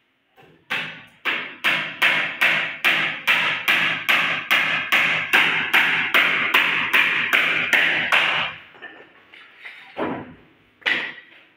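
Hand hammer driving nails into the wooden battens of a wardrobe frame: a steady run of about twenty blows, a little over two a second, stopping about eight and a half seconds in, then two single knocks near the end.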